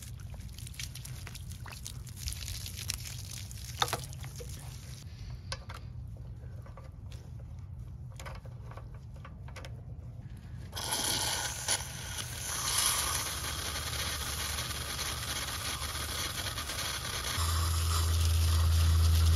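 Garden hose being handled and screwed onto the pressure washer's water inlet, with scattered clicks and scrapes. About eleven seconds in, a steady hiss of rushing water starts as the water is turned on, and a steady low hum joins it near the end.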